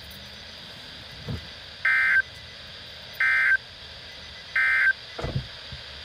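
Emergency Alert System end-of-message signal coming from a Midland NOAA weather radio's speaker: three short bursts of warbling SAME data tones, each about a third of a second and about 1.3 s apart. It marks the end of the severe thunderstorm warning broadcast.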